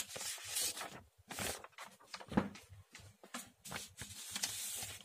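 Sheets of paper rustling and sliding as a page is moved aside and another laid in its place, a string of short swishes several times over.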